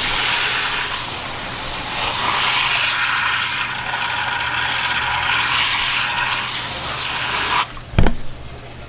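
Pressurised water spray nozzle hissing steadily as its jet washes out the gutted belly cavity of a large yellowtail, then cutting off suddenly near the end. A single thump follows just after.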